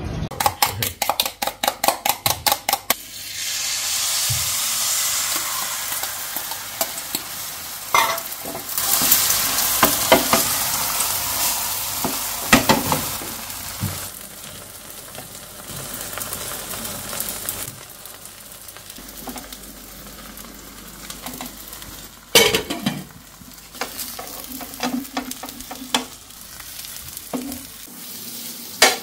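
Egg omelette sizzling as it fries in a pan on a gas stove, with a spatula scraping and knocking against the pan. It opens with about three seconds of rapid, even tapping. The sizzle is louder in the first half and quieter after about fourteen seconds.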